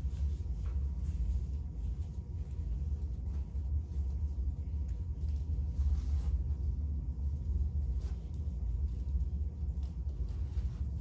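Steady low rumble of room background noise, with a few faint scattered ticks.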